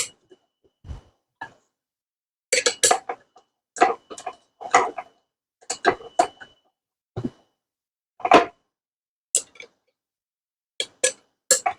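Irregular sharp metal clicks and clinks, a dozen or so, with a faint ring after a few: a wrench, nut and flange being worked on a concrete saw's blade arbor as the blade is fitted.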